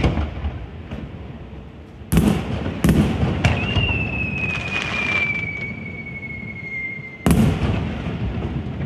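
Aerial firework shells bursting: two loud bangs about two and three seconds in, each fading slowly. Then a long whistle slowly falls in pitch for about four seconds, cut off by another loud bang as a shell opens.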